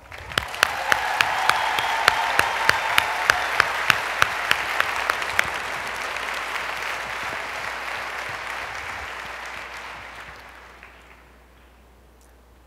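Conference audience applauding, with single sharp claps standing out about three times a second in the first five seconds; the applause fades away about ten seconds in.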